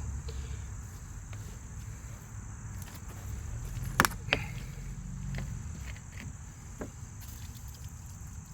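Crickets or similar insects chirring steadily in the background over a low rumble, with two sharp clicks about four seconds in.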